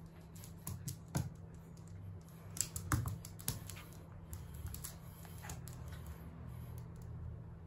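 Jack Russell Terrier puppy's claws clicking and scrabbling irregularly on a wooden floor as she tugs and jumps, with a cluster of sharper clicks about three seconds in.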